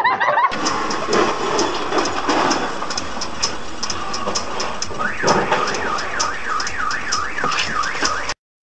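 Noise from inside a moving car with a regular ticking about three times a second. About five seconds in, a warbling electronic alarm starts, its pitch swinging up and down several times a second.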